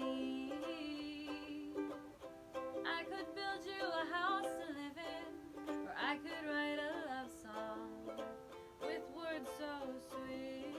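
Ukulele playing chords in an instrumental passage of a song.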